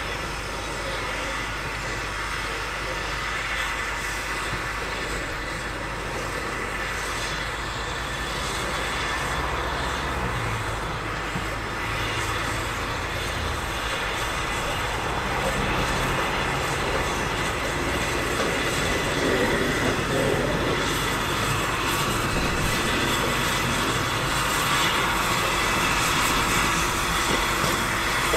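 Narrow-gauge steam locomotive approaching slowly along the track, growing louder as it draws near over the second half.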